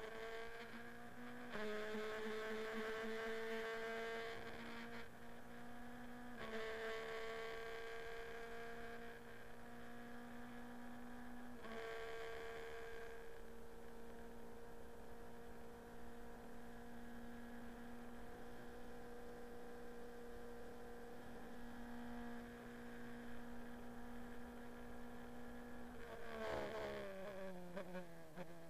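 Formula Renault 2.0 racing car's 2.0-litre four-cylinder engine heard from the cockpit, climbing in pitch through the gears with short breaks at each upshift, then holding a steady high buzz at full speed. Near the end the pitch drops in quick steps as the driver brakes and downshifts for a corner.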